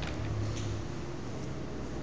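Faint light ticks of a screwdriver working a small screw and nut through metal construction-kit strips and brackets, over steady background noise.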